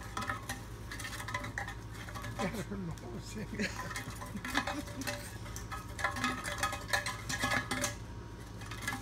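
Metal muffler pipe clattering and scraping, with many short clicks and knocks.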